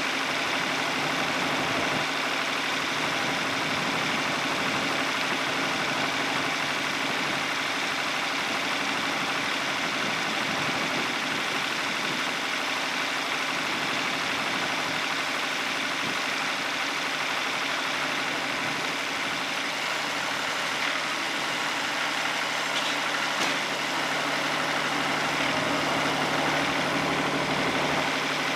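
Wood-Mizer LT50 Wide portable sawmill's engine idling steadily, the saw head parked and not cutting.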